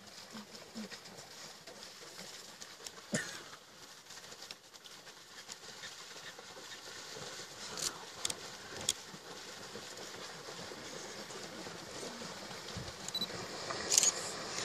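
A herd of Cape buffalo wading and drinking at a waterhole: faint splashing and hoof patter in shallow water, broken by a few sharp knocks, the loudest near the end.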